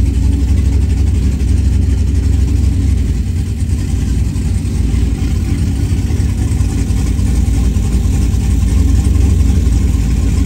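Truck engine idling with a steady deep rumble.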